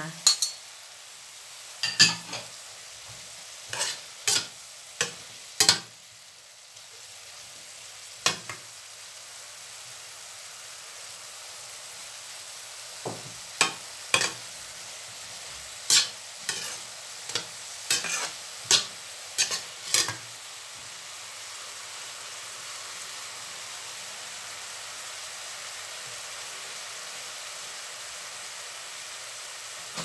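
Bean sprouts, tofu and spring onions sizzling in a metal frying pan as a metal slotted spatula stirs them, with sharp scrapes and taps of the spatula on the pan coming in clusters over the first twenty seconds. After that, a steady sizzle alone.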